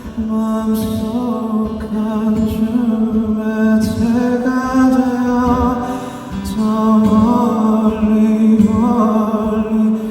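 Live band music: a sustained low note under a wavering, vibrato-laden melody line with no clear words, with a few light percussive hits.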